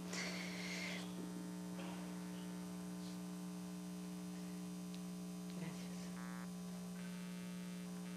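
Steady mains hum, a low electrical drone picked up through the lectern's microphone and sound system, with a faint rustle in the first second and a few faint clicks.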